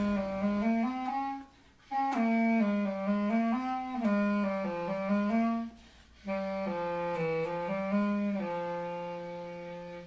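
Closing music: a slow solo melody on a woodwind instrument, played in three phrases with short breaks, ending on a long held note that fades away.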